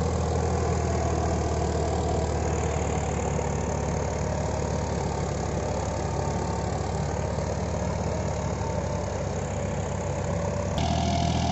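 Farmtrac 60 Supermaxx tractor's three-cylinder 55 hp diesel engine running steadily at about 1800 rpm in first high gear, under load as it pulls an 11-tine cultivator. The sound shifts abruptly a little before the end.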